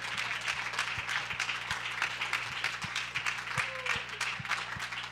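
A congregation clapping and applauding, many hands at once in an uneven, steady patter, with the preacher clapping along.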